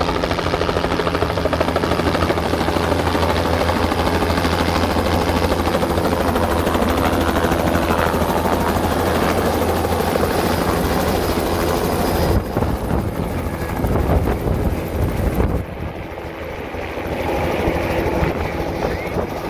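Helicopter flying low and coming in to land close by, its rotor beating steadily and loudly. The sound changes about twelve seconds in and drops somewhat about three-quarters of the way through.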